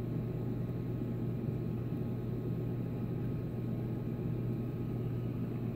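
Steady low mechanical hum with a constant wash of noise, from a running reef aquarium's pumps and water circulation.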